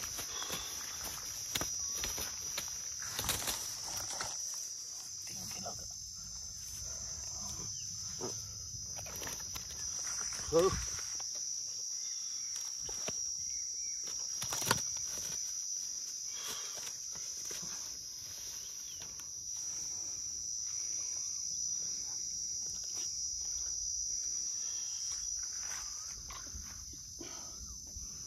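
Steady high-pitched chorus of insects, with scattered clicks and rustles. There is a short exclamation of "oh" about a third of the way in, and a sharp click a little later.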